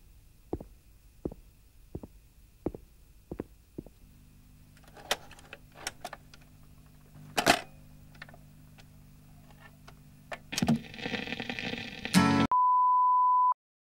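Regular footsteps, about three every two seconds, then a record changer starting up: a steady motor hum from about four seconds in, small clicks and a louder clunk as the control lever is worked, and the needle going down into surface crackle. Near the end a short steady beep cuts off into silence.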